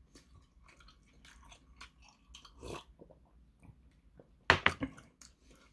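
Quiet close-up mouth sounds of a person chewing seafood jjamppong, with a cluster of loud sharp clicks about four and a half seconds in as he drinks from a glass of makgeolli.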